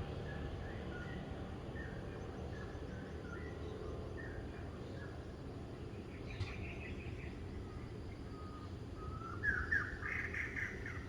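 Songbirds calling: short chirps repeated every half second or so through the first half, a brief call about six seconds in, and a louder burst of chattering calls near the end, over a steady low rumble of background noise.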